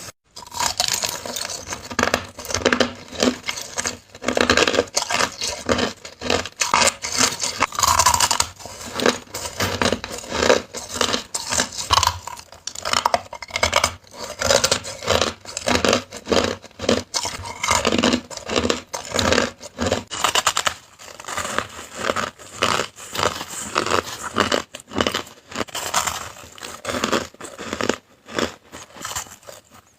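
A person biting and chewing hard crushed ice: a dense, irregular run of crisp crunches and cracks.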